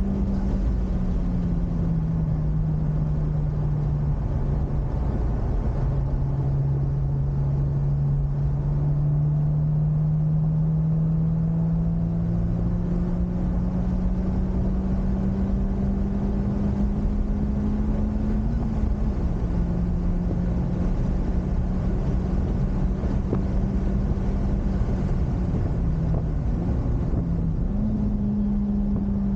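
Honda Civic Type R FK8's turbocharged 2.0-litre four-cylinder engine running under load on track, heard from inside the car. Its note climbs slowly over a long stretch and dips briefly a few times, over a steady low rumble of road and wind noise.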